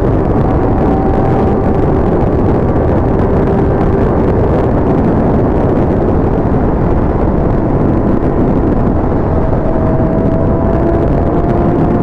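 Sport motorcycle cruising at a steady speed: heavy wind rush over the microphone with a steady engine tone underneath, its pitch sagging slightly and creeping back up in the last few seconds.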